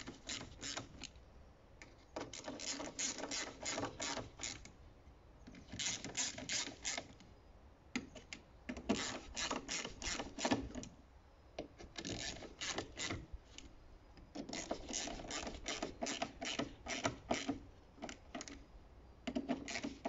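Ratcheting screwdriver clicking in quick runs, in bursts of one to four seconds with short pauses between, as the screws of a diesel fuel filter housing cover are tightened one after another.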